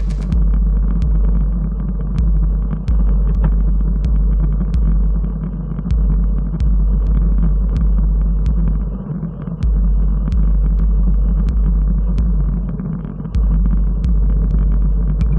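Electronic background music that sounds muffled: deep bass notes held for a second or two and changing in steps, with a faint regular tick over them.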